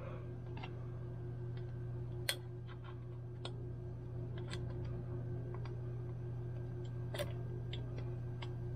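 Light, irregular clicks and taps of small mixer parts being handled and fitted, with a sharper click about two seconds in and another near the end, over a steady low hum.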